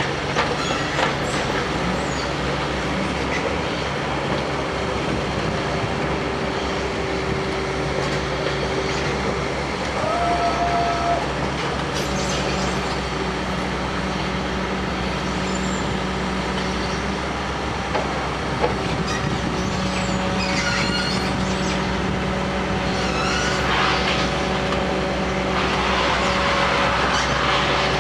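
Heavy construction machinery running steadily, with diesel engine hum, brief metallic squeals and scattered clanks.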